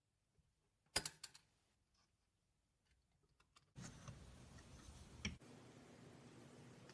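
Crunchy slime crackling as it is pressed: a quick cluster of sharp clicks about a second in, then faint hiss with a single further click.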